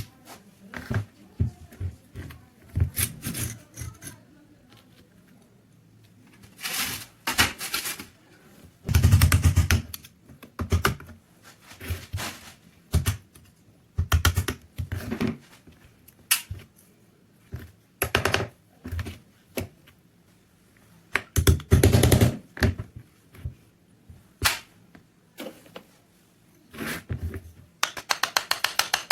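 Irregular clicks, knocks and scrapes of pistol parts being handled, with heavier thumps about nine seconds and twenty-two seconds in.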